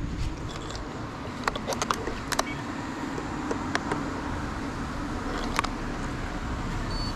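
Scattered light clicks and taps from handling a radio-control transmitter and working its switches, over a steady low background rumble.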